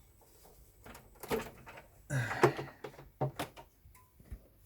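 A series of handling knocks and clicks on a powered-down rack server, with the loudest clunks about two seconds in and a few sharp clicks after.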